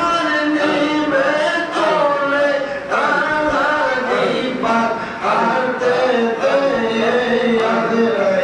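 A man chanting Islamic devotional zikr solo, in long held phrases whose pitch bends and glides.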